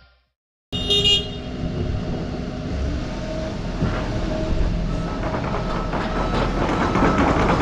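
Hydraulic excavator working: its engine and hydraulics start up suddenly after a moment of silence, with a brief horn-like tone about a second in. The machine noise then grows steadily louder.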